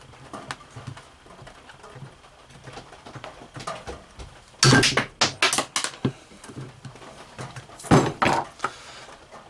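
Sharp metallic snaps and clicks as nippers bite through the hardened steel governor rod in an open engine crankcase: a cluster of loud snaps about halfway through and another sharp snap near the end.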